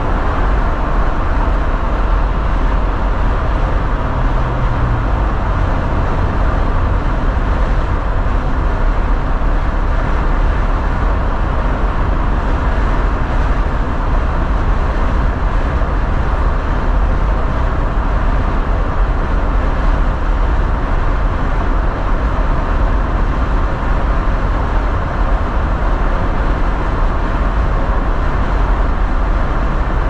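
A car cruising at freeway speed: steady tyre and road noise over a deep, low hum.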